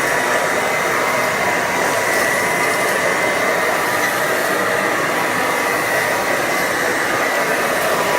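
Hoover model 450 upright vacuum cleaner (1930s, 290-watt motor) running steadily: a continuous rush of air with a steady high whine from the motor.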